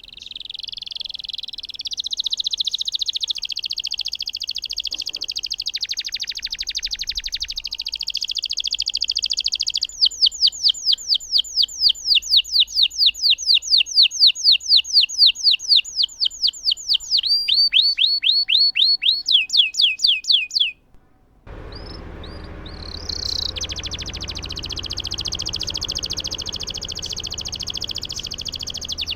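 Domestic canary singing long, continuous rolling trills, high-pitched. About ten seconds in it changes to a fast run of downward-sweeping notes, roughly four or five a second, then a quicker phrase. After a momentary gap a little past twenty seconds, the song resumes over a steady background hiss.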